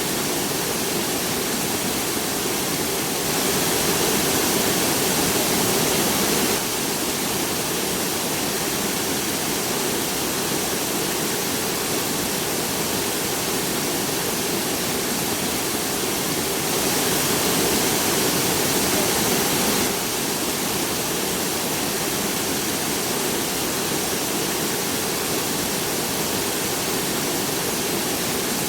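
Steady rain falling, an even wash of water noise. Twice it gets louder and brighter for about three seconds: a few seconds in, and again a little past the middle.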